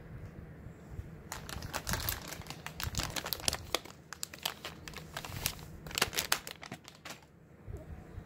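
Soft plastic pack of wipes crinkling as it is handled and a wipe is pulled out, in two spells of dense crackling over about six seconds.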